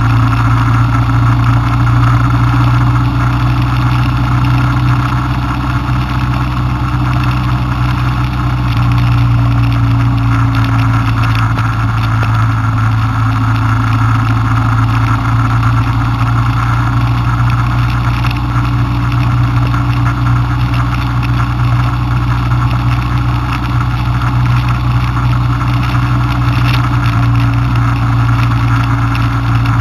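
Car engine and tyre noise heard from inside the cabin while cruising on a highway: a steady, unchanging low drone.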